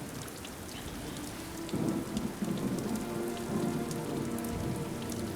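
Steady rain falling, with many small drops pattering. About two seconds in, a low rumble swells up underneath.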